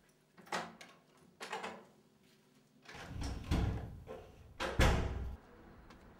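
A series of handling knocks: two light knocks, then two heavier thuds, the louder of them about five seconds in.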